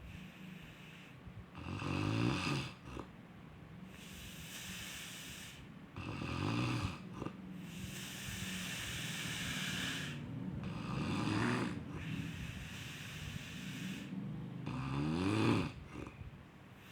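A sleeper snoring: four low snores, roughly every four to five seconds, with long breathy breaths between them.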